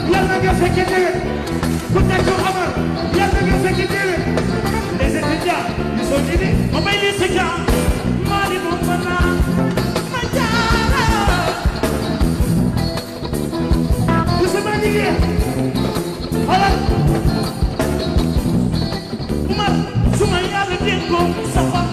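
Live mbalax band playing a song, with a lead voice singing over a steady beat.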